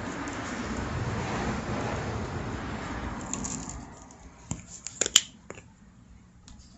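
A gloved hand squishes and rubs an oily potato around a paper plate, a steady wet rubbing noise that fades after about three seconds. Then come a few sharp clicks as the plastic rub shaker is shaken and set down.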